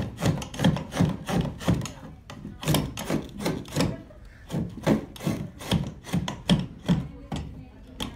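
Clog maker's hinged stock knife shaving a wooden clog blank by hand. It makes a quick run of scraping cuts through the wood, about two or three strokes a second, with short pauses between runs.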